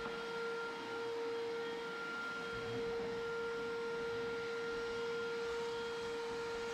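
A motor running steadily, giving a constant whine at one pitch over a rushing hiss.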